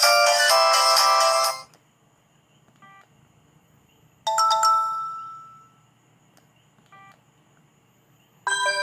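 ZTE Z222 mobile phone playing its built-in ringtones through its small speaker, one after another. A multi-note ringtone melody cuts off about two seconds in, and a short chime rings out and fades about four seconds in. Two faint short beeps fall in the gaps, and a new ringtone starts near the end.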